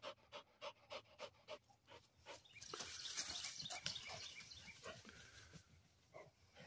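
A blue heeler panting hard, quick even breaths about three a second, then a few seconds of faint rustling.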